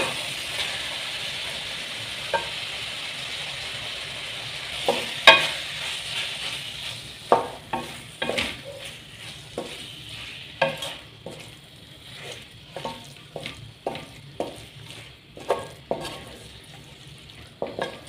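Raw minced meat (qeema) sizzling in hot oil and fried masala in a metal pan, with a wooden spatula scraping and knocking against the pan as it is stirred. This is the start of browning the mince. The sizzle is strongest at first and fades, and from about five seconds in the spatula strokes come about once or twice a second.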